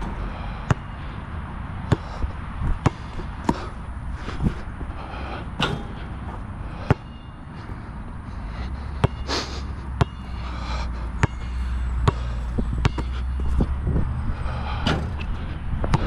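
Molten BG3800 basketball bouncing on a hard outdoor court, sharp irregularly spaced bounces throughout. About halfway through, a low aircraft engine rumble builds and grows louder.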